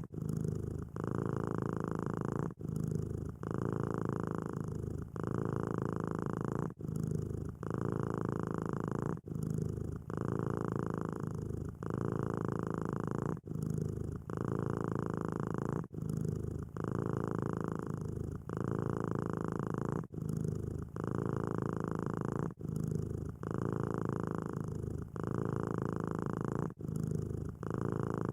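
Domestic cat purring steadily and close up. The purr breaks briefly every couple of seconds as the cat switches between breathing in and breathing out.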